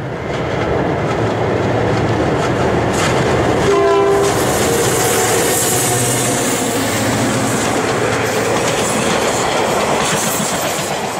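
Diesel locomotive and passenger coaches passing close by over a steel bridge, with a steady rumble and clatter of wheels on rail joints. There is a short horn blast about four seconds in.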